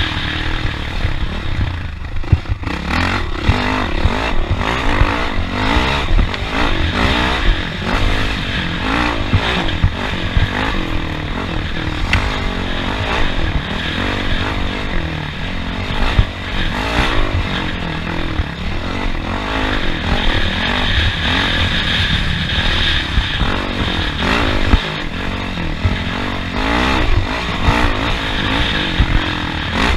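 Off-road race vehicle's engine running hard, its pitch rising and falling constantly as it revs over a rough track, with frequent clattering knocks and scrapes.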